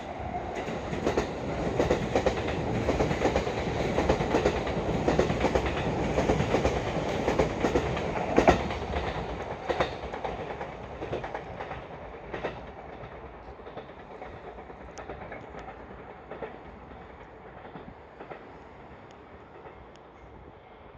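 Limited express electric train passing, its wheels clattering over the rail joints; loudest for the first eight or nine seconds, then fading away as it goes.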